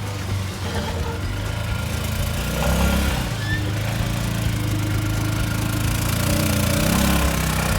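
BMS Stallion 600 UTV engine running under load, its pitch rising and falling slightly, as the side-by-side pushes snow with its front-mounted plow. Background music plays alongside.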